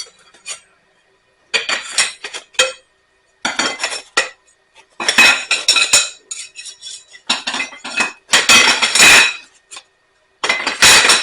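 Metal and plastic parts of a 3D-printer kit clinking and clattering as they are rummaged through and lifted out of the box, in several short bursts with brief pauses between.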